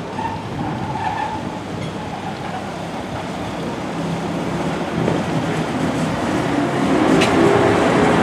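DB Class 111 electric locomotive hauling double-deck coaches past at close range: a steady electric hum that grows louder as it nears, with a rising whine near the end. A sharp click sounds about seven seconds in.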